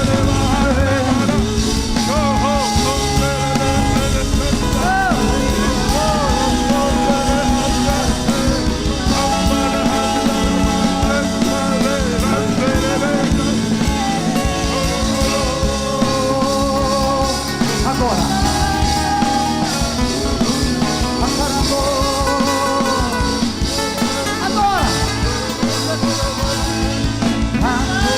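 Worship band playing with sung vocals: held, wavering sung notes over guitar and a steady beat.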